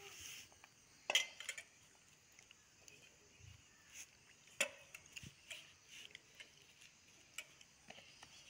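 Faint scattered clicks and light taps from a baby handling a stainless steel plate and a piece of guava, the loudest about a second in.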